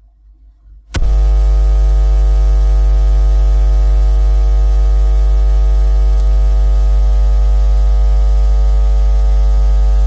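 Loud, steady electrical buzz with a deep hum underneath, cutting in abruptly about a second in and holding unchanged.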